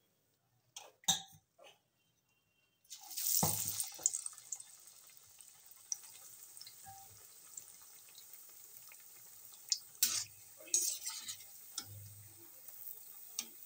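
A few light clicks, then about three seconds in battered potato slices go into hot oil in a kadhai and the oil starts sizzling loudly, settling into a steady sizzle as the pakoras fry. A slotted spoon clinks against the pan a few times near the end.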